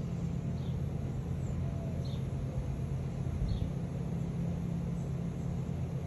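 A steady low mechanical hum, with a few faint short chirps from birds over it.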